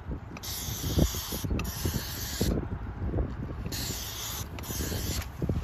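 Pioneer aerosol field-marking paint spraying in two hiss bursts of about two seconds each, each briefly broken, as a hash mark is painted. Wind rumbles on the microphone throughout.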